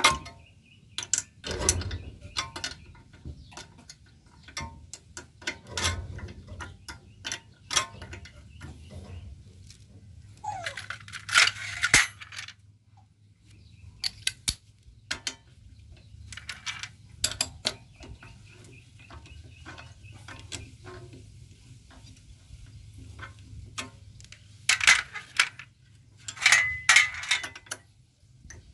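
Metal hand tools clicking, knocking and scraping against a diesel engine as its fuel injector is unbolted, in scattered irregular clinks with two longer spells of rasping work.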